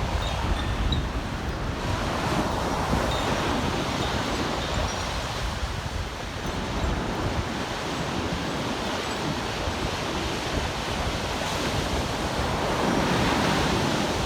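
Sea surf washing on a beach, swelling louder near the end, with wind buffeting the microphone. A few faint, high Koshi chime notes ring in the first few seconds.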